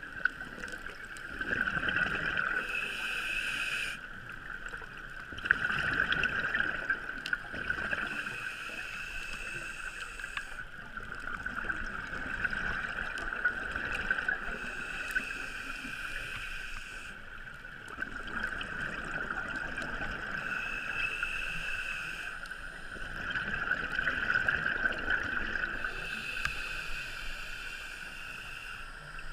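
Scuba diver breathing through a regulator, heard muffled through an underwater camera housing: slow cycles of breath, with bursts of bubbles rushing out every few seconds.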